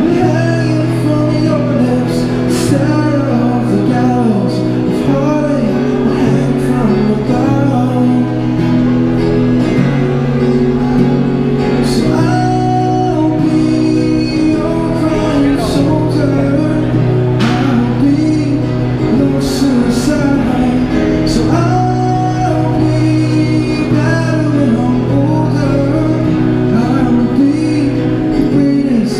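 A man singing a song to his own acoustic guitar (a Yamaha), through a microphone and a small battery-powered Roland Cube Street EX amplifier.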